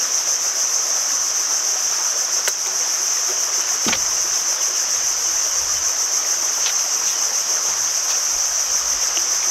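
Insect chorus: a steady, high-pitched drone. There is a single knock about four seconds in and a few faint ticks.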